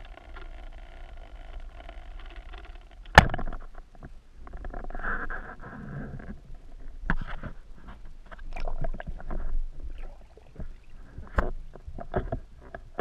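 Underwater recording: a steady muffled water hiss, then one sharp, loud crack about three seconds in, typical of a band-powered speargun firing. After it come a stretch of rushing water noise and scattered knocks and clicks as the gun and its shooting line are handled.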